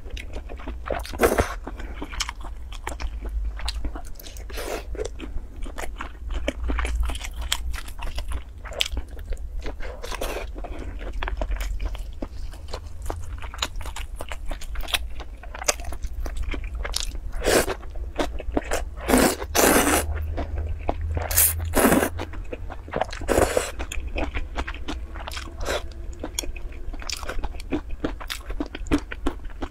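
Close-miked eating sounds: noodles slurped up and chewed, with many irregular wet mouth clicks and a few louder, longer slurps in the latter half.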